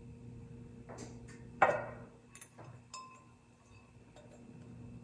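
A few light knocks and clinks of glassware, a glass measuring cup against a glass baking dish, the sharpest about a second and a half in, with a brief ring after some of them, over a low steady hum.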